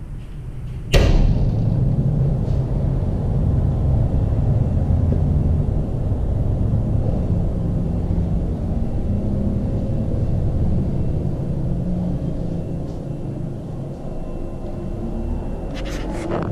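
A wooden room door bangs shut once, sharply, about a second in, followed by a steady low rumble and a few quick clicks near the end.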